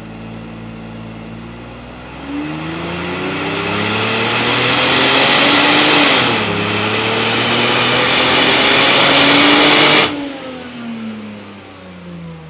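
Mercedes SL600's V12 engine under full throttle on a chassis dynamometer, revs climbing steadily, dipping once as the automatic gearbox shifts up about six seconds in, then climbing again. About ten seconds in the throttle closes abruptly and the revs fall away.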